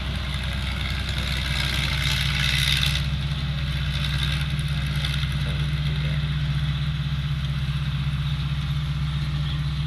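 Rice combine harvester's engine running steadily at a constant hum, with a brief louder hissing rush about two seconds in.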